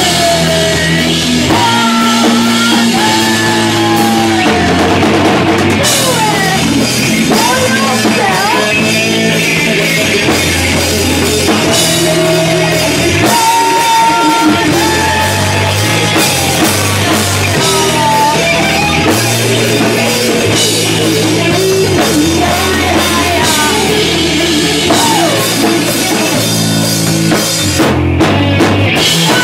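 A rock band playing loud and live: electric guitars, bass guitar and drum kit with cymbals, with sliding pitched lines over the top.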